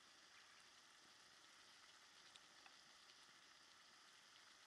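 Very faint, steady simmering hiss of noodle broth in a pan on a campfire, with a few tiny pops.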